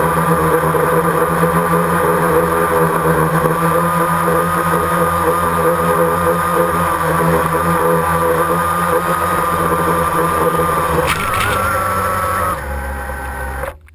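Quadcopter drone's electric motors and propellers whining steadily, heard from its own onboard camera. About eleven seconds in there is a knock and the pitch shifts as it lands in the grass, then the motors drop to a quieter hum and the sound cuts off suddenly.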